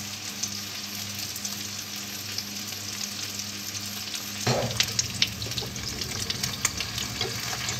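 Food frying in a stainless steel pan on the hob: a steady sizzle with a low hum under it. About halfway through it grows louder, with sharp crackles and clicks.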